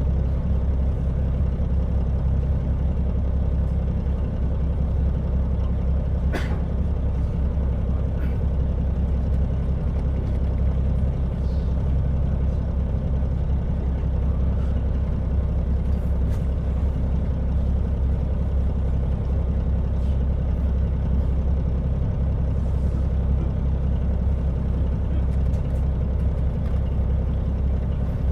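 KiHa 40 diesel railcar running with a steady low engine drone. A sharp click comes about six seconds in and a fainter one a couple of seconds later.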